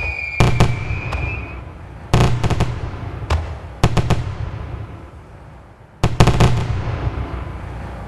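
Aerial fireworks bursting in clusters of sharp bangs, each trailing off in an echoing rumble, in about five volleys. A whistling shell's falling whistle fades out about a second and a half in.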